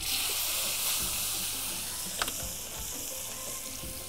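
Hot oil in a frying pan bursts into a sizzle as a piece of hamour (grouper) is laid in with tongs, then keeps frying steadily. A single metal tap of the tongs on the pan comes about two seconds in.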